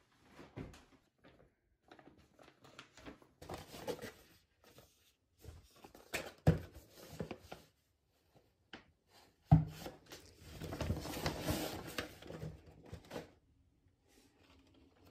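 Items being unpacked from a woven plastic tote bag: small clicks and handling noises, two sharp knocks as things are set down or bumped, and a spell of bag crinkling and rustling.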